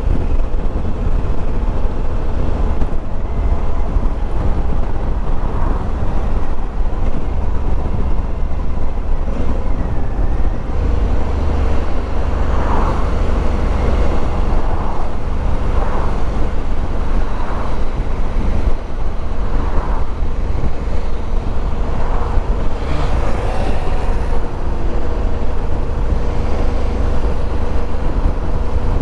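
Honda dual-sport motorcycle being ridden at a steady pace: the engine runs steadily under a heavy low rumble of wind on the microphone.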